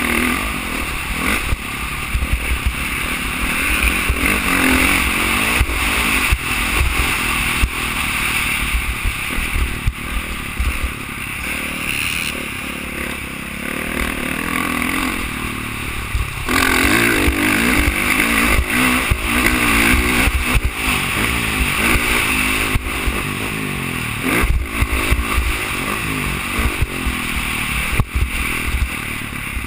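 Dirt bike engine ridden hard, revving up and down with the throttle, easing off for a few seconds and opening up again a little past halfway. Heard from a helmet-mounted camera, with heavy wind buffeting on the microphone.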